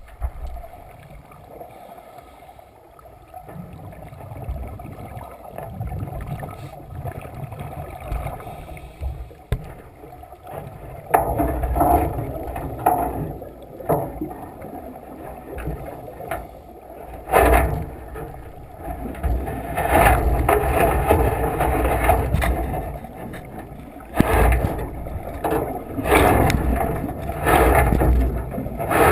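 Small boat on the water, with wind buffeting the microphone and water rushing and splashing in irregular surges, a few sharp knocks among them.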